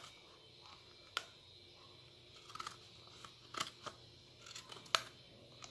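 Scissors snipping through a soft plastic cup-noodle cup, a series of sharp snips about a second apart.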